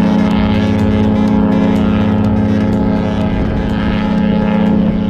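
Cruise ship's horn sounding one long, steady blast.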